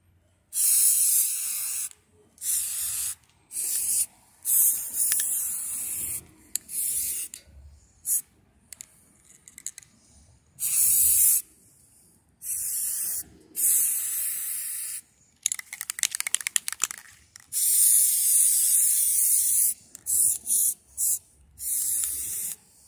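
Aerosol spray-paint can (Rust-Oleum) hissing in about a dozen separate bursts of half a second to two seconds, one for each press of the nozzle, with short silences between them. About two-thirds of the way through, one longer burst comes with a rapid crackle.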